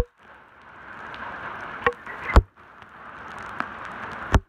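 Heavy rain pouring onto a flooded road: a steady hiss of splashing drops. Several loud sharp taps of drops striking right by the microphone cut through it, and the hiss briefly drops away after each one.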